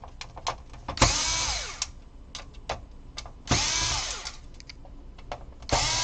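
Electric screwdriver run in three short bursts of about a second each, the motor's whine falling in pitch as each one winds down, backing out screws from the PS4 console's plastic housing. Light clicks from handling the screws and parts in between.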